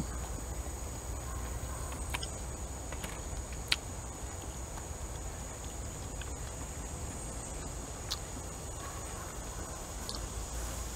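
Steady high-pitched drone over a low hum, with a few faint clicks about two, four and eight seconds in.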